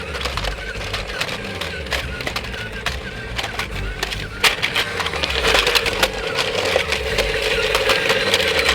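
Remote-control 4x4 toy truck with its small electric motor whirring steadily while its wheels clatter and crunch over rocks, with many sharp clicks that get busier in the second half.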